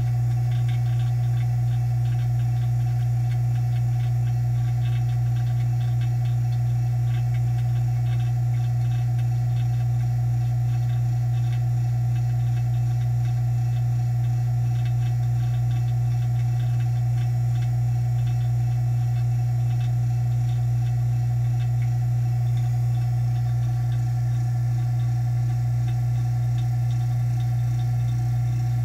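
Vacuum investing machine's pump running with a steady low hum, holding vacuum on the bell jar over the freshly poured investment flasks after the investment has risen and dropped.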